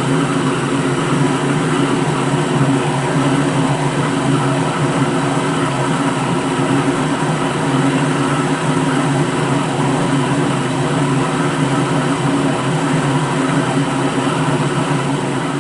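Electric blender motor running at a steady speed, a dense, even whirring hum with no change in pitch.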